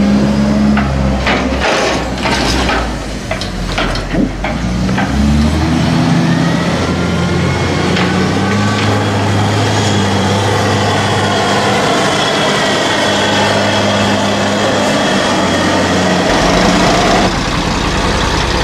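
JCB 414S wheel loader's diesel engine working hard as it climbs and pushes grass silage up the clamp, its engine note and hydraulic whine rising and falling. Several sharp clanks and knocks come in the first few seconds. Shortly before the end another tractor's engine takes over.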